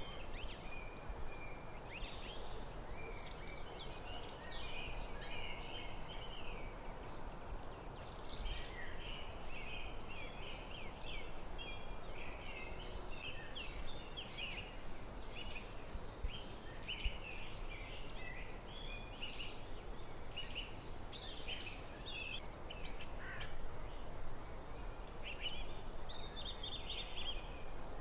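Forest birdsong: several birds giving quick chirps and warbling phrases almost without a break, over a steady low background hiss.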